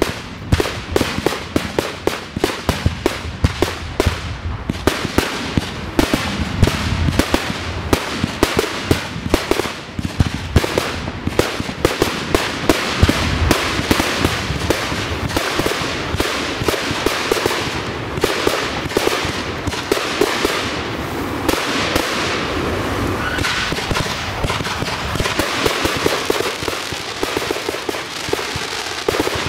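Fireworks display in full barrage: rapid bangs several a second with no let-up. From about twenty seconds in, a dense hissing crackle fills in between the bangs.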